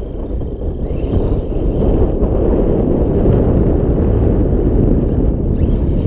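Two JLB Racing Cheetah brushless RC monster trucks driving over gravel: the electric motors whine and rise in pitch as the throttle is opened, about a second in and again near the end, over a steady low rumble.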